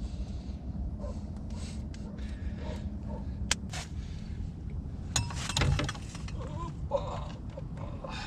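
Handling noise of a fishing rod and spinning reel: scattered clicks and knocks, with a loud rattle of clicks and a thump about five seconds in, over a steady low rumble.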